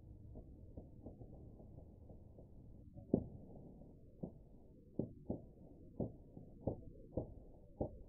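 A steady low rumbling hiss, then a run of about eight dull, irregular thumps and knocks from about three seconds in, the first the loudest.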